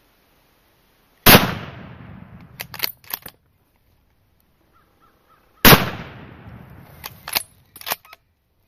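Two loud shots from a Savage 110 bolt-action .30-06 hunting rifle, about four seconds apart, each ringing out for about a second. A few sharp metallic clicks follow each shot as the bolt is worked to chamber the next round.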